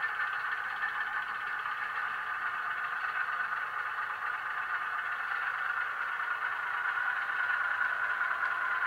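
Diesel shunter engine sound from the DCC sound decoder in a Hornby Ruston & Hornsby 48DS model, a recording of a similarly powered German shunter played through the model's small onboard speaker, running steadily as the loco moves along the track with no deep bass. It grows a little louder over the last couple of seconds.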